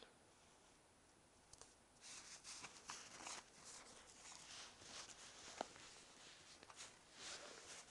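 Faint crunching of deep snow underfoot, quick irregular crunches starting about two seconds in, with a single sharp click about halfway through.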